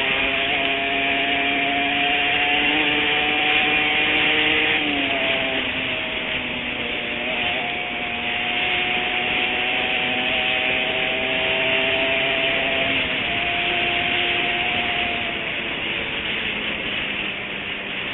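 Honda NSR 150 single-cylinder two-stroke motorcycle engine running under throttle with a harsh, raspy note. The pitch climbs slowly, drops abruptly about five seconds in, then climbs and eases again.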